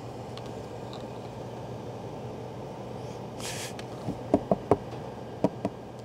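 Kitchen cooking sounds: a steady low hum, a short hiss about three and a half seconds in, then several light knocks and clinks of cookware.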